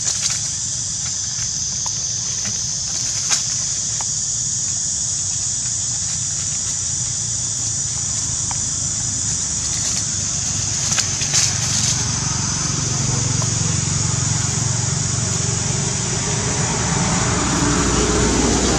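Forest ambience: a steady high-pitched insect drone, with a few short dry-leaf crackles as a baby macaque moves through fallen leaves. A low rumble grows louder near the end.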